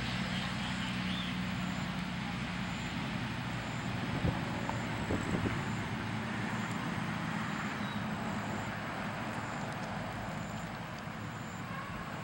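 A motor engine running steadily with a low hum over a wash of outdoor traffic noise, with a few faint knocks about four to five seconds in.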